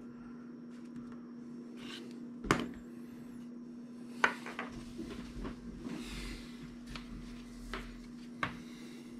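Light handling knocks and clicks on a wooden tabletop as a small plastic earbud is set down, about three sharper knocks among smaller ticks, over a faint steady hum.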